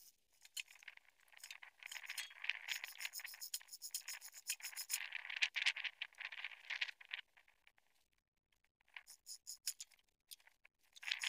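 Metal chain and hoist hardware rattling, clinking and scraping in irregular bursts as they are handled, with a short lull about three-quarters of the way through.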